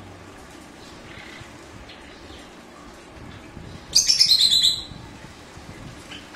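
Java sparrows chirping: a loud, rapid run of high chirping notes about four seconds in, lasting under a second, with a few fainter chirps before it.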